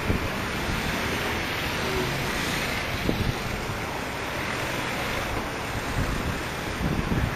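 Steady rushing street noise of traffic, with wind buffeting the microphone.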